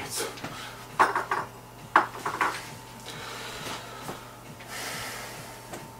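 A few sharp clinks of small metal parts, one about a second in and a quick cluster around two seconds, as screws are handled while the CDJ deck is put back together; then a soft rustle about five seconds in.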